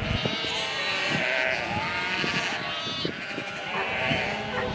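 A large flock of sheep bleating as a dog drives them, many calls overlapping with no break.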